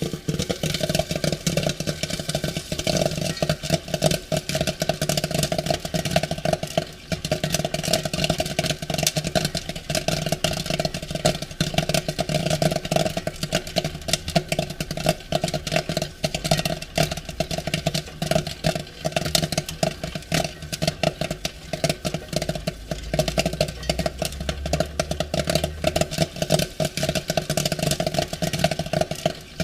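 Popcorn popping in quick, dense succession, a continuous crackle of many pops a second over a steady low hum.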